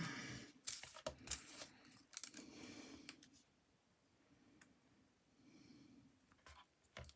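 Faint rustling and light clicks of paper being handled, busiest in the first three seconds, then almost quiet with a few soft sounds near the end.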